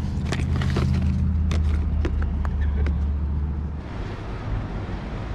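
Light clicks and rustles of fishing tackle being handled over a steady low rumble. About four seconds in this gives way to an even outdoor hiss.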